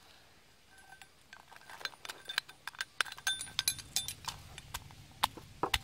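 Stone mortar and pestle with a metal spoon and peeled garlic cloves: irregular sharp clinks and taps on the stone, several a second, starting about a second in, with a few heavier knocks near the end.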